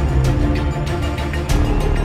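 Background music with a steady beat over sustained low bass notes.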